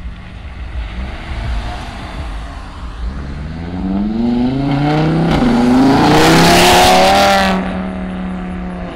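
A car's engine revving up hard as it pulls out and accelerates away, its pitch climbing with a brief dip about five seconds in, as at a gear change. At the loudest point there is a loud rushing hiss that cuts off about seven and a half seconds in, leaving a lower steady engine drone.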